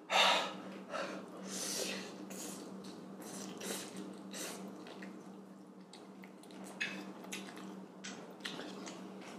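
A person slurping and chewing very spicy instant noodles, with sharp breaths drawn in through the mouth against the heat, the loudest right at the start. A low steady hum runs underneath.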